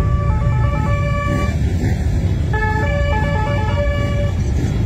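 Many motorcycles running as they ride past in a slow parade, their engines a dense low drone. Over them plays a tune of quick stepped tones that hop between pitches.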